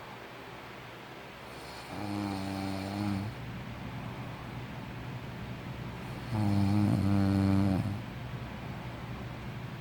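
A sleeping person snoring: two low, droning snores about four seconds apart, the second much louder.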